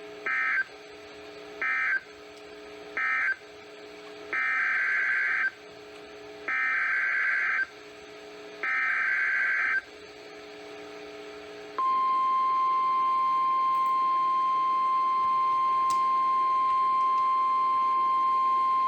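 NOAA Weather Radio Emergency Alert System tones. First come three short SAME data bursts, the end-of-message code closing the previous warning. Then come three longer buzzy SAME header bursts, about a second apart, encoding the coming tornado warning. From about two-thirds of the way in, the steady 1050 Hz Warning Alarm Tone sounds without a break.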